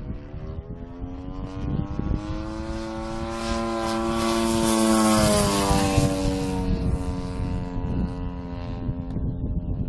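Engine and propeller of a 35%-scale Sbach radio-control aerobatic plane droning overhead. The sound swells to its loudest about five seconds in, then its pitch drops. Wind buffets the microphone.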